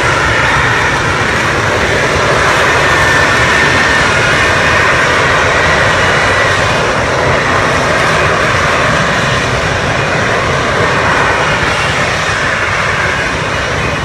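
Lockheed Martin F-35B Lightning II hovering, its F135 jet engine and shaft-driven lift fan running in a loud, steady roar. A faint high whine sits over it during the first half.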